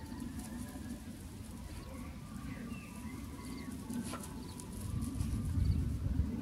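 Birds chirping in short groups of quick high notes, with a few brief sliding calls, over a steady low rumble that grows louder near the end.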